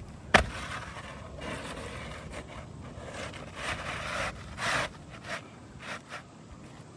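A single sharp knock, then scraping and rustling as a new asphalt 3-tab shingle is worked into place on the roof, with a few short knocks near the end.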